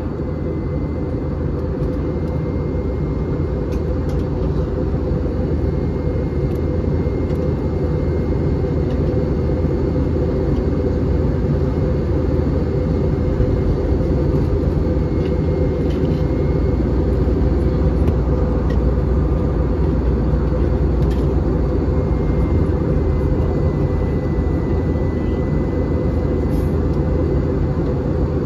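Airbus A320 cabin noise in flight, heard from a window seat beside the engine during descent: a steady, deep drone of jet engines and rushing air, with a faint steady high whine above it.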